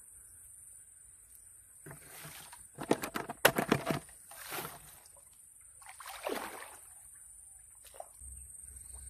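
Plastic bag crinkling and rustling in sharp clicks as the crabs are put into it, then water sloshing as he wades and crouches back into the shallow ditch.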